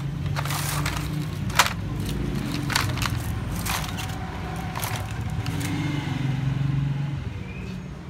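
A steady low mechanical hum with several sharp clicks and clacks scattered through the first five seconds.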